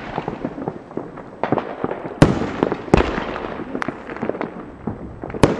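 Fireworks display: aerial shells bursting with sharp bangs, the loudest about two and three seconds in and again near the end, with many smaller pops and crackles between them.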